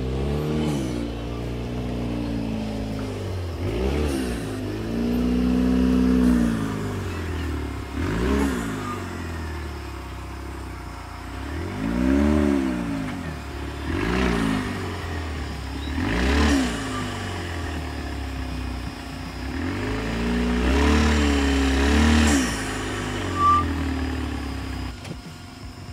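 Rock buggy's engine revving up and dropping back again and again, about eight swells, as it crawls its big tyres up and over granite boulders.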